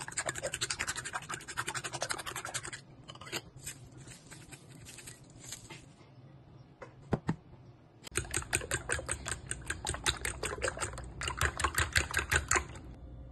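Fork beating raw eggs in a ceramic bowl: rapid clicking and scraping of the tines against the bowl, stopping for several seconds in the middle, where there are only a few light clicks, then starting again.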